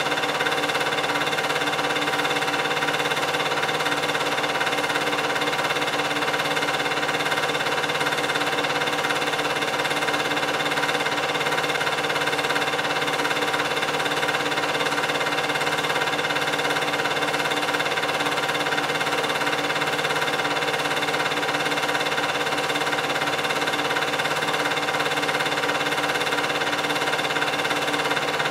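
An 8mm film projector running: a steady mechanical whir with several constant hum tones.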